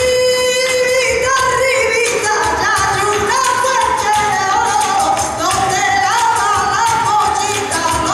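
Live flamenco tangos: a singer's cante with long, wavering held notes over flamenco guitar, with hand-clapping (palmas) and percussive strokes from the cajón and the dancer's footwork.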